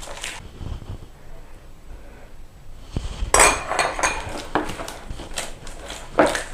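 A utensil clinking and scraping against a mixing bowl while butter is worked into soft dough. It starts with low handling sounds, then quick clinks and knocks come from about three seconds in.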